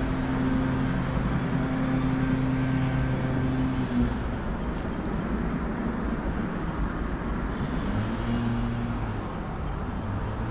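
A motor vehicle's engine hums steadily. It drops out about four seconds in and comes back with a brief rise in pitch near the end. Under it runs a continuous rush of flowing creek water.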